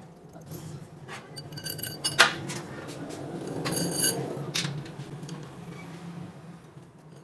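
Honda CG125 front-fork parts clinking as they are handled: a steel damper rod with its spring is slid into a chromed fork tube, giving a few sharp metal-on-metal clinks with a short ringing, the loudest about two and four seconds in.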